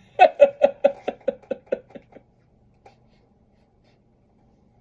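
Laughter right after a joke's punchline: a run of about ten short "ha" pulses, quick and fading away over about two seconds.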